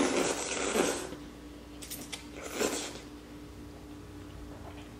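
Ramen noodles slurped up in airy pulls. The longest and loudest comes in the first second, and a second pull comes a little past halfway.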